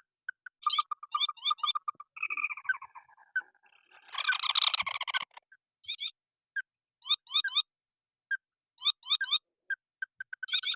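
White-breasted waterhen (ruak-ruak) calling: repeated groups of two to four quick rising notes, a fast even run of single notes around one to two seconds in, and a louder rasping burst about four seconds in.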